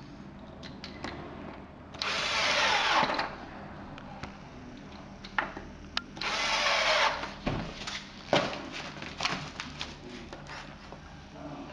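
Makita 14.4 V cordless drill-driver driving small screws through a swivel caster's mounting plate, in two bursts of about a second each. Short clicks and knocks of the screws and caster being handled come between the bursts.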